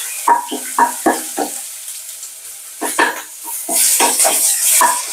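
Steel spoon stirring and scraping a dried-chili, garlic and shallot paste with curry leaves frying in oil in a nonstick kadai. A run of short scrapes and taps on the pan comes in two bursts, over a sizzle that swells about four seconds in.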